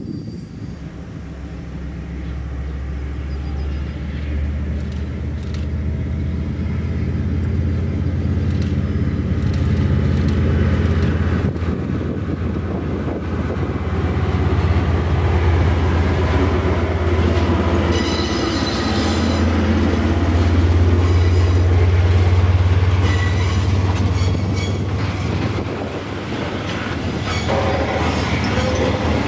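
Diesel-electric freight locomotive passing close: its engine drone builds as it approaches and goes by. The freight wagons then rumble past, with a few short high wheel squeals in the second half.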